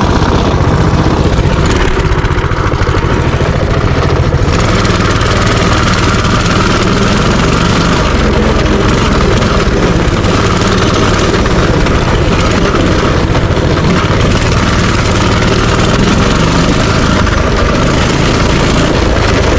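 Minibike's small engine running steadily, picking up and growing fuller about four seconds in.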